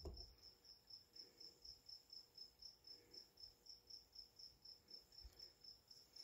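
Faint cricket chirping in an even rhythm at one high pitch, about four chirps a second, with a soft low bump at the very start.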